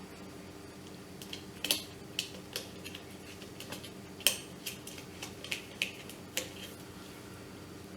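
Small metal parts clicking and clinking irregularly as nuts are fitted onto the bolts of a travel kettle's heater plate, with two louder clinks, one about two seconds in and one past the middle. A faint steady hum runs underneath.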